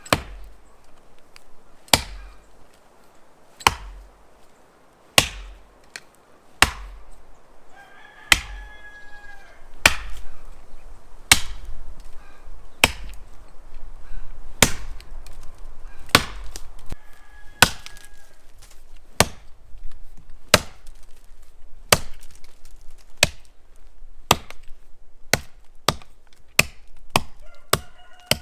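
Axe chopping wood: a long run of sharp single strikes, about one every one and a half seconds at first, quickening to nearly two a second near the end. A bird calls in the background a few times.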